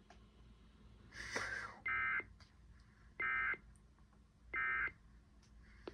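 Emergency Alert System end-of-message signal: three short bursts of warbling SAME digital data tones, about a second apart, marking the end of the weather warning broadcast. A brief hiss comes just before the first burst.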